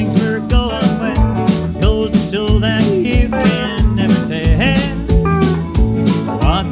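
Live country band playing an instrumental break: a lead instrument plays a sliding, bending melody over guitar, bass and a steady drum beat.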